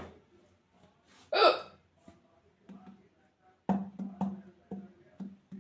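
A woman's single loud hiccup about a second and a half in. From near the middle a run of short, even knocks about twice a second over a low hum follows.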